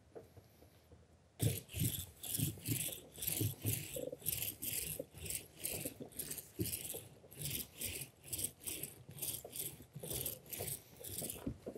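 Hand seam roller rolled back and forth over 3-inch seam tape on EPDM rubber roofing membrane, making rhythmic strokes about three a second that start after about a second and a half. The rolling presses the tape down so it bonds fully to the primed rubber.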